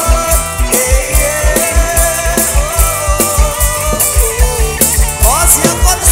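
Mor lam sing band playing: a melody line over a fast, steady kick-drum beat, with one rising pitch bend about five seconds in.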